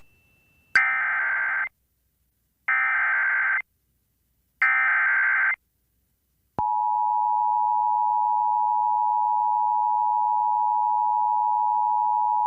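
NOAA Weather Radio Emergency Alert System alert: three short buzzy SAME digital header bursts about a second apart, then a steady, continuous warning alarm tone starting about six and a half seconds in. It is the coded lead-in that flags an urgent warning, here a severe thunderstorm warning.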